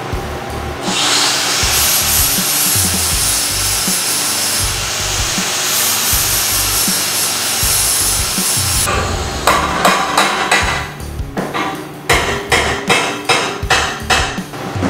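Angle grinder cutting through a tack weld on a steel roll-cage tube, running steadily for about eight seconds. Then a quick string of hammer blows, about two or three a second, knocking the tacked bar loose.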